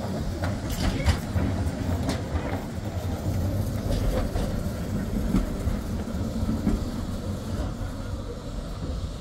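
Tram running on rails: a steady low rumble with irregular sharp clicks and clatter.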